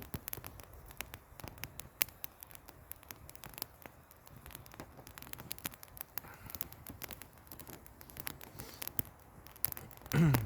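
Campfire crackling, a steady scatter of irregular sharp pops and clicks. A brief loud voice sound with falling pitch comes right at the end.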